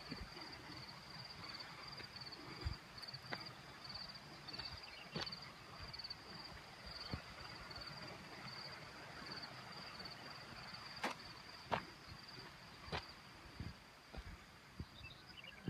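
Insects chirping faintly in a fast, even, high-pitched pulsing trill, with a few sharp knocks scattered through it.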